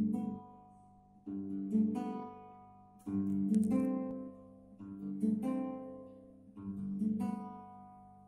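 Acoustic guitar played slowly in a repeating pattern: a chord is struck, a second stroke follows about half a second later, and each is left to ring and fade, the pattern coming round about every second and three-quarters.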